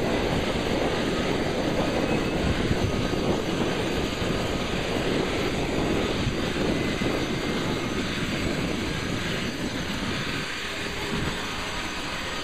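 Boeing CH-47 Chinook helicopter warming up on the ground: its twin turboshaft engines run with a steady, loud rush while the tandem rotors turn, easing off slightly near the end.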